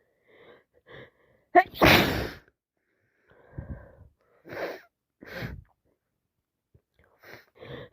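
A woman with a heavy head cold takes a few catching breaths, then gives one loud, wet sneeze about a second and a half in. Sniffs and short breaths follow, with quick breaths building up again near the end.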